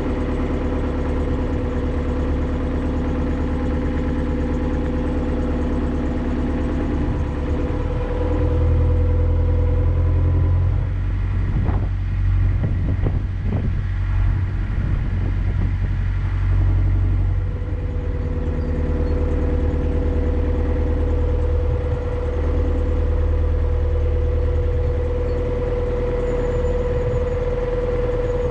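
Narrowboat's diesel engine running steadily at cruising speed, a low drone with a steady hum. From about 8 to 17 seconds in the engine note gets deeper and a little louder, then settles back.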